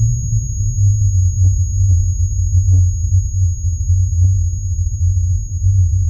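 A deep, steady low rumble with faint scattered clicks over it.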